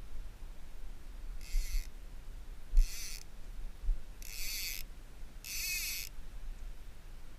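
Fly reel's ratchet clicker buzzing in four short bursts, as line is pulled off the reel by hand.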